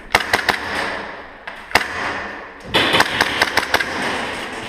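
Airsoft gas guns firing: sharp snapping shots in quick clusters, a few near the start, a single one about a second and a half later, then a rapid run of shots about three seconds in, echoing off the bare hall.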